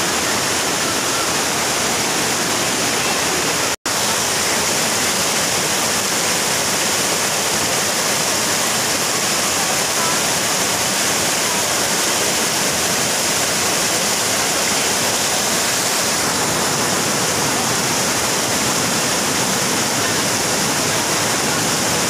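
Waterfall water rushing and splashing down a rock cascade in a loud, steady rush. It breaks off for an instant about four seconds in, then goes on unchanged.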